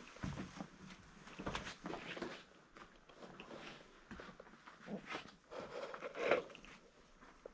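Irregular footsteps squelching on an oily tunnel floor, with one louder squelch about six seconds in.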